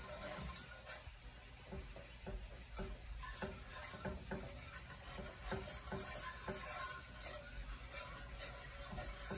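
Wire whisk stirring bacon gravy in a cast iron skillet: a run of quick, irregular ticks and scrapes as the wires hit and drag along the pan, with the wet churn of the sauce.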